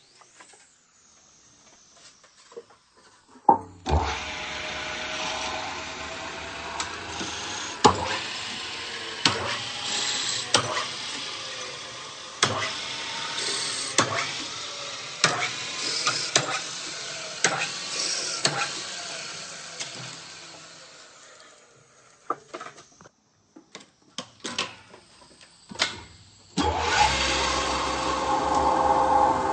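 Metal lathe starting up and running, with repeated sharp clicks and ticks over its steady noise. It runs down about twenty seconds in, then starts again near the end with a steadier tone.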